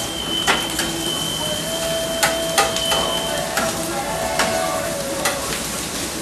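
Metal griddle spatulas scraping and clacking on a steel flat-top griddle as fried rice is turned, a sharp clack every second or so over a steady sizzle. A thin high tone runs through the first half, and a lower one through the middle.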